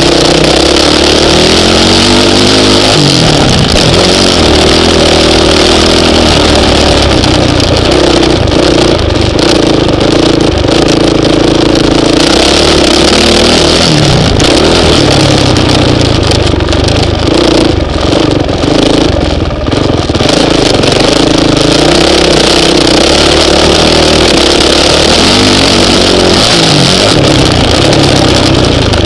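Honda CRF450X single-cylinder four-stroke dirt bike engine running hard as the bike is ridden around a motocross track, its revs climbing and falling the whole time. The revs drop sharply about three seconds in, again about halfway through, and near the end.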